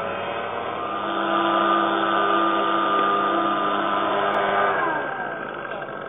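An engine running at a steady pitch, which drops and fades near the end as the vehicle moves off or slows.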